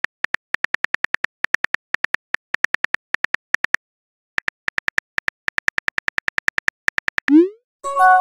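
Simulated phone-keyboard typing clicks from a texting-story app: a fast, even run of short clicks with a half-second pause about four seconds in. Near the end comes a short rising whoosh as the message is sent, then a ringing chime.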